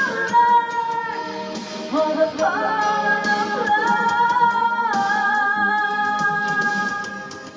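A woman singing long held notes over music, sliding up to a higher note about two seconds in and dropping down again near the middle.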